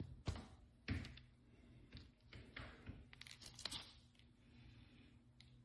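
Faint handling noise: a few sharp knocks in the first second, then a stretch of rustling, over a steady low electrical hum.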